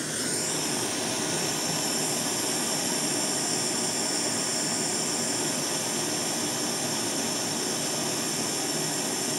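Propane hand torch burning with a steady hiss, its flame heating copper pieces to red heat for silver brazing.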